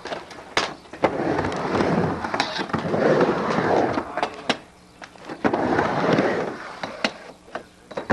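Skateboard wheels rolling back and forth across a wooden halfpipe ramp. The rolling rises and falls in swells every second or two, with sharp clacks as the board meets the coping at the top of the walls.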